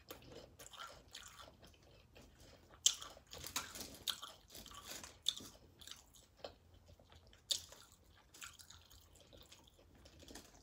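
Chewing of loaded nachos, the tortilla chips crunching in irregular sharp crackles, loudest a few seconds in and again past the middle.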